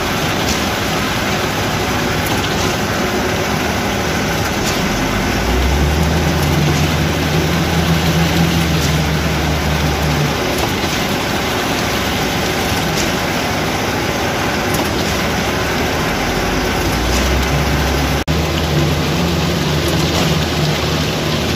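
Concrete mixer truck unloading into a concrete pump's hopper: heavy diesel engines running steadily under a dense wash of machine and sliding-concrete noise. A deeper, stronger engine note comes in about six seconds in for several seconds and again near the end.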